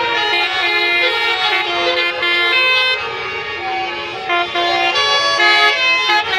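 Bus 'telolet' horn playing a tune: loud, pitched horn notes that keep stepping from one note to the next without a break.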